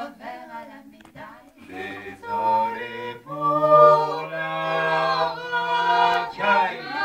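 Vocal quartet of three women and a man singing a cappella in close harmony: short sung phrases at first, then long chords held from about three seconds in.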